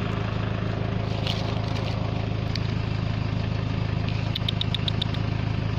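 Steady low engine-like hum, as of a motor idling, with a quick run of about seven short high chirps about four and a half seconds in.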